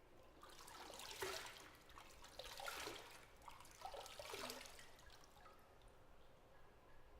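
Bathwater in a tub sloshing and splashing in three short swells, each a second or so long, with small drips between them.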